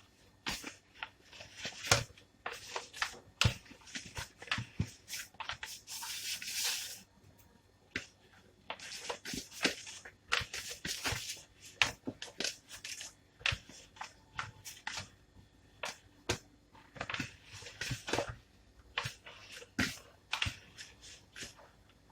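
Hands kneading soft dough: irregular sticky squelches, slaps and rustles, with a longer scraping rustle about six seconds in.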